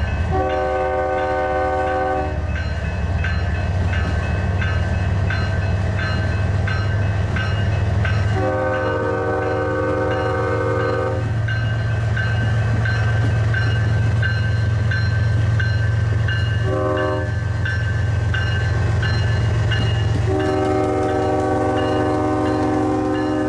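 Canadian Pacific GE ES44AC diesel locomotive sounding its multi-chime air horn in the grade-crossing pattern: long, long, short, long, the last blast held on. Beneath the horn, its diesel engine runs with a steady low drone as it passes close by.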